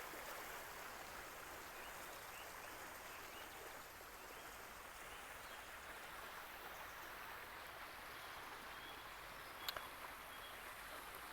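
Small creek running, a faint steady rush of water, with a single sharp click about ten seconds in.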